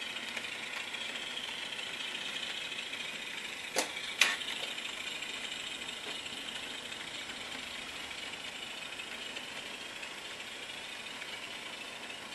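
Diesel engine running sound from an HO scale model diesel locomotive's sound system, thin and tinny through a tiny speaker, with no deep bass. Two sharp clicks about four seconds in.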